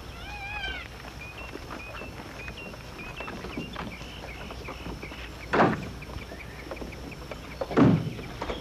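Two car doors of an old sedan shut with heavy thuds, about two seconds apart, over birds chirping.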